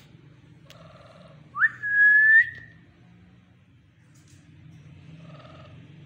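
Alexandrine parakeet giving one loud whistle about a second and a half in: a quick upward sweep, then a steady held note for over half a second. Faint soft chattering comes before and after it.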